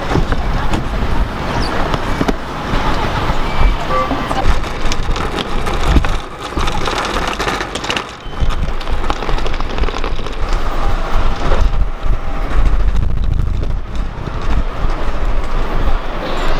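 Road traffic and street noise with a steady low rumble, dipping briefly twice in the middle.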